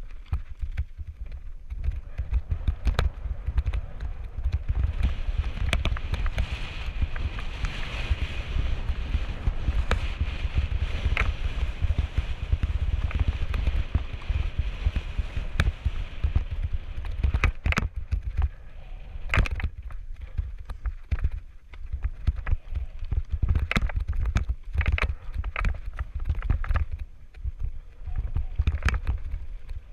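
Wind rumbling on the microphone of a camera riding on a descending mountain bike, with the tyres rolling over loose rock and dirt. The bike rattles and knocks sharply over rocks, more often in the second half.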